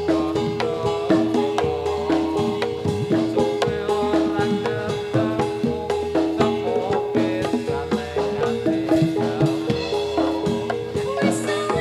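Javanese gamelan ensemble accompanying a jathilan dance: hand drums and metallophones playing a fast repeating pattern with a steady beat.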